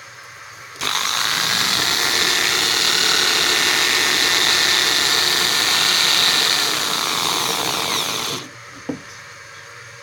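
Electric drill turning a 32 mm hole saw into the plastic wall of a polyethylene water tank, starting about a second in and running steadily for about seven and a half seconds before it stops. A single short click follows.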